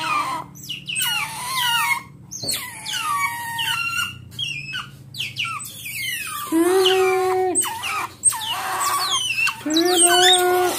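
Pet otters squealing and whining in a run of short, high calls that fall in pitch, with two longer, steadier cries, one about two-thirds of the way through and one near the end.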